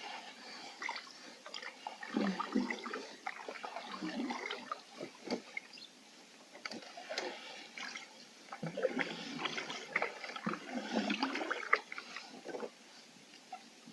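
A canoe paddle pulling slowly through calm water: two strokes, the second starting about six seconds after the first, each a swirl and gurgle of water. Drips fall from the paddle blade in between.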